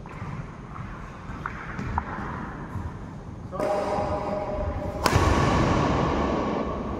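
Badminton rally: rackets striking a shuttlecock, with light ticks early and one loud, sharp hit about five seconds in, echoing in a large hall.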